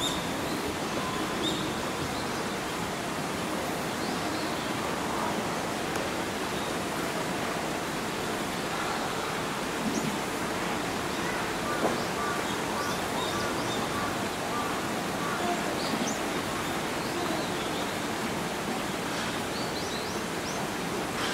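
Steady rush of running water, with faint short high chirps now and then.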